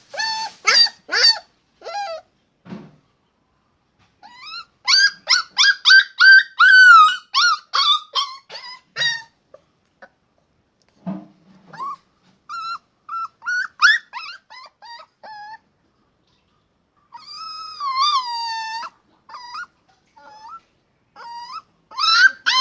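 A dog whining and yipping in runs of short, high-pitched cries with gaps between them, with one longer cry falling in pitch about eighteen seconds in.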